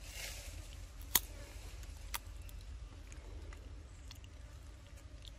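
A young monkey eating at close range: a few sharp clicks as it bites and chews, the loudest about a second in and another a second later, over a low steady rumble.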